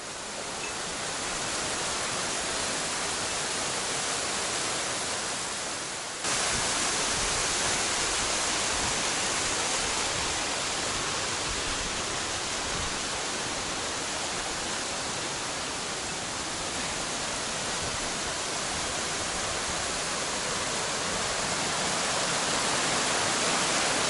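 Mountain stream cascading over rocks in small waterfalls, a steady rush of water. It swells up over the first couple of seconds and jumps suddenly louder about six seconds in.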